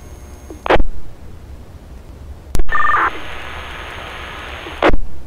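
Two-way fire radio traffic with no voice. A short squelch burst comes about a second in. Then a transmitter keys up with a brief two-note electronic beep and about two seconds of open-channel hiss, cut off by another squelch burst near the end.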